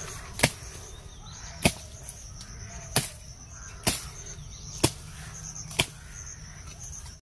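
A sharp, short click about once a second over a steady, high, pulsing insect drone, likely cicadas or crickets.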